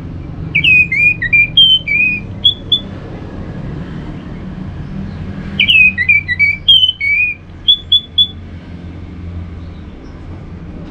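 Orange-headed thrush (anis merah) singing two phrases of quick, slurred whistled notes. Each phrase lasts two to three seconds, with a pause of about three seconds between them.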